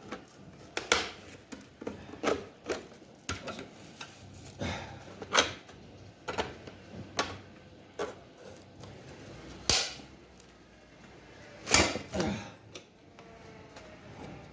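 Irregular sharp clicks, cracks and knocks as a tool pries at an e-bike battery casing to force it open.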